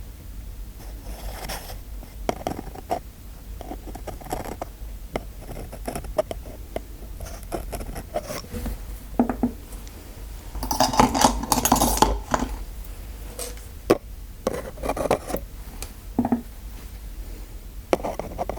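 Close-miked handling of small dentist-roleplay ASMR tools: scattered light clicks and scrapes, with a louder second or so of scraping and clattering about eleven seconds in.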